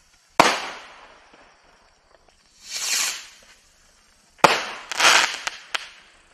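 Miracle Fireworks Rockets Red Glare bottle rockets going off: a sharp bang, then a rocket's short whoosh that swells and fades, then a second sharp bang. Another whoosh follows, with a couple of small pops near the end.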